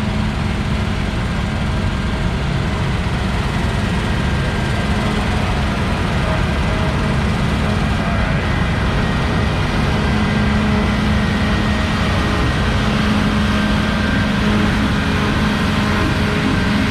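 Heavy farm vehicle engine running steadily: a dense low rumble with a steady droning tone that swells now and then.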